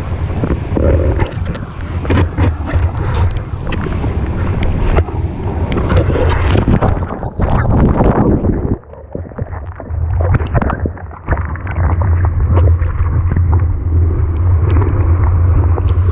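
Wind and rushing water buffeting a GoPro microphone at sea, a heavy low rumble with splashes throughout and short dips about nine and eleven seconds in.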